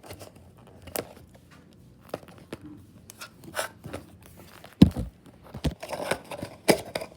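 A Pringles can being opened by hand: scattered clicks, crinkling and tearing from the plastic lid and the foil seal, with one loud thump a little under five seconds in.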